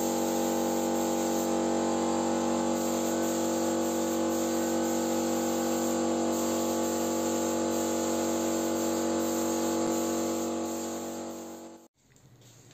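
Paint spray rig running steadily: an unchanging motor hum with a hiss of spraying air, as gold finish is sprayed onto a plaster relief. It dies away and cuts off near the end.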